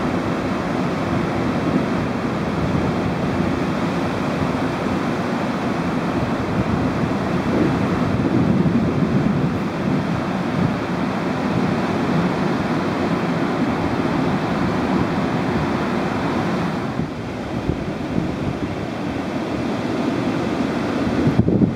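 Small waves breaking and washing up the beach in a steady surf noise, with wind buffeting the microphone.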